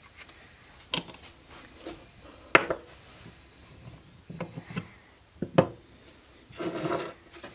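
Metal parts of a Piaggio Ciao moped's centrifugal clutch clicking and knocking as they are handled and taken apart by hand: a handful of sharp knocks, the loudest about two and a half seconds in, then a short rubbing scrape near the end.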